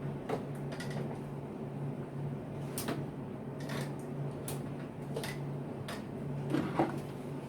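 Scattered small clicks and knocks of a repaired 12-volt DC adapter plug and its wiring being handled and plugged in, over a steady low hum.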